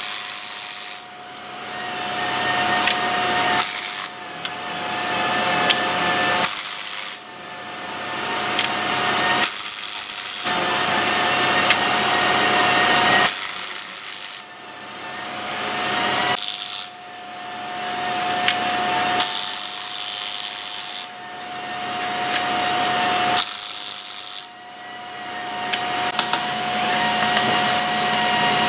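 Cordless impact wrench run in repeated bursts of a few seconds each, with short breaks between, as it works bolts on an engine's cylinder head.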